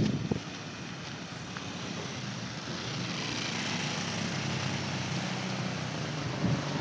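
Street traffic: a steady engine hum and road noise that slowly grows louder as a vehicle approaches.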